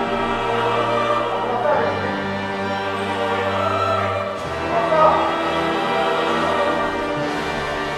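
Background music: orchestral piece with choir-like singing, sustained chords changing every couple of seconds.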